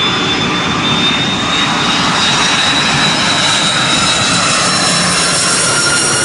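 Jet engines of a twin-engine widebody airliner passing low overhead with its landing gear down on approach to land: a steady loud rumble and rushing noise with a thin high whine.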